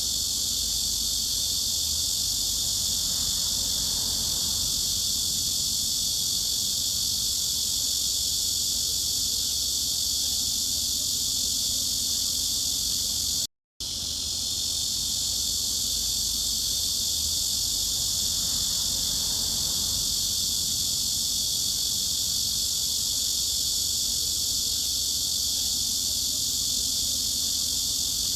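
A cicada chorus in a steady, unbroken, high-pitched drone. It drops out for a split second about halfway through, where the recording loops.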